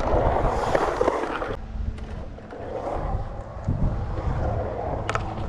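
Skateboard's urethane wheels rolling across a concrete bowl wall, a close, steady grinding rumble that cuts off abruptly about a second and a half in. Fainter, lower rolling and wind rumble follow, with a couple of sharp clicks near the end.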